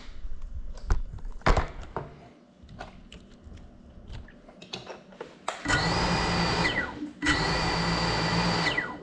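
A 6S GEPRC Cinelog35 cinewhoop's brushless motors spinning up in two bursts of about a second each: a steady high whine whose pitch drops as the motors stop. Before them, scattered knocks and clicks of the drone being handled.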